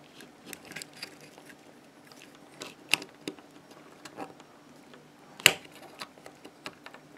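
Small plastic clicks and taps from fingers working a camera and its connector cable loose from a quadcopter's plastic frame, with a sharper snap about three seconds in and the loudest about five and a half seconds in.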